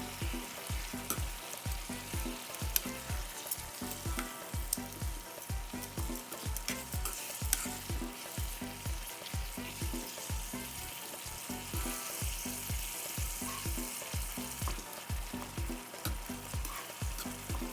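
Chicken pieces sizzling in a hot pan of coconut oil and butter as they are stirred, with occasional sharp clicks of the utensil against the pan. A steady low beat runs underneath, about two thumps a second.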